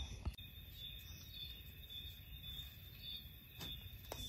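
Crickets trilling steadily, a thin continuous high-pitched tone, with a few faint clicks.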